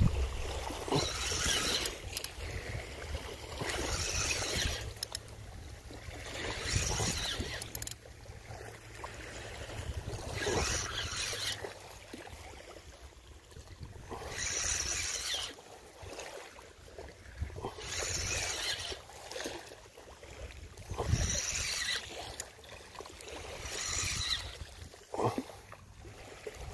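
Small waves washing onto the shore: a hissing wash every three to four seconds over a low steady rumble.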